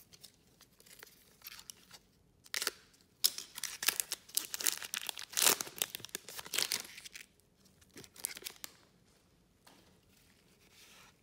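A foil trading-card pack being torn open and crinkled by gloved hands, with a burst of crackly tearing and crinkling from about two and a half seconds in to about seven seconds. Lighter rustling of the wrapper and cards follows near the end.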